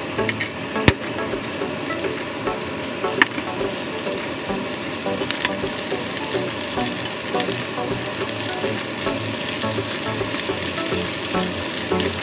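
Pork pieces sizzling in hot oil in a nonstick frying pan while being stirred and tossed with shrimp paste using a plastic slotted spatula, with a few sharp clicks of the spatula against the pan, the loudest about a second in.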